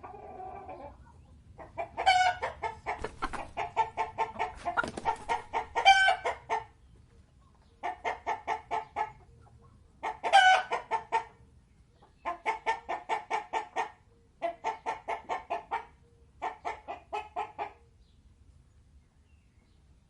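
Chickens clucking in quick runs of repeated clucks, about six bouts each lasting one to four seconds with short pauses between, the longest and loudest near the start.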